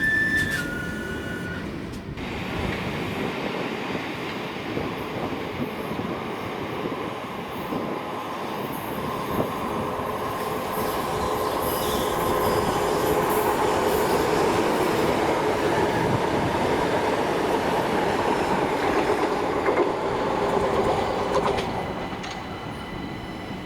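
A train running along the track past the microphone: a broad rail rumble and hiss that builds over several seconds, holds loudest for most of the middle with a faint wheel squeal, and fades away near the end. A brief two-note tone sounds right at the start.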